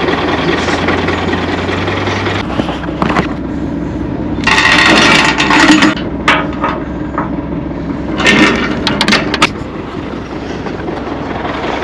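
Heavy equipment engine running steadily, its low hum dropping in pitch about two seconds in, with two bursts of harsh, hissing noise around the middle and again later.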